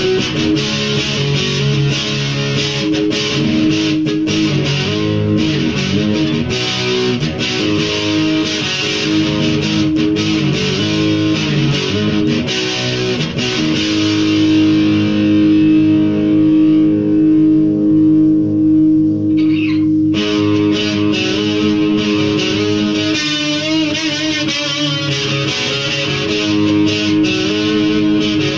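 Electric guitar played solo: picked notes and chords. Around the middle a long held note pulses in volume before the playing picks up again.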